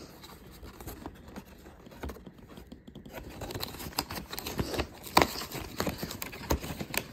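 A cardboard advent calendar door being pried and torn open by hand: crackling, tearing cardboard with scattered sharp clicks, sparse at first and busier from about halfway through.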